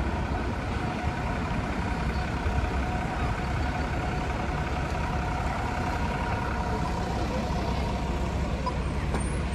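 City street traffic: a steady low rumble of buses and cars idling and moving, with a faint steady hum over it.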